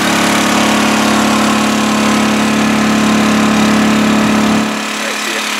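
Honda EU2000i inverter generator's single-cylinder four-stroke engine running steadily under household load. It gets a little quieter near the end.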